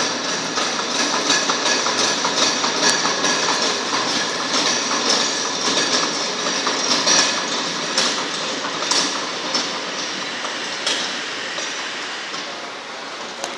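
Hammer mill wood chipper running with a dense, rapid clatter of knocks over a steady mechanical din, growing gradually quieter over the last few seconds.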